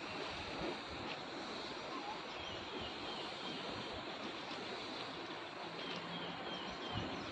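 Steady outdoor background hiss with a few faint, short bird chirps and a couple of soft low thumps.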